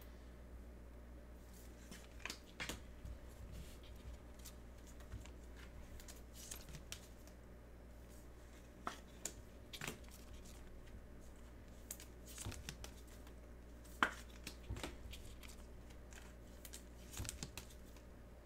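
Trading cards and their plastic and foil packaging being handled on a table: scattered light taps, slides and rustles, with a sharper tap every few seconds, over a faint steady low hum.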